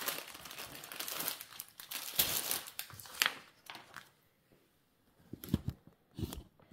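Crinkling of a diamond painting canvas and its thick protective cover sheet as they are handled and smoothed flat by hand. The crinkling fades out about four seconds in, followed by a few soft knocks near the end.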